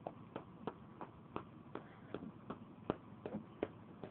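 A can of Copenhagen Wintergreen dip being packed: short, sharp taps on the can about three times a second, firming the loose tobacco.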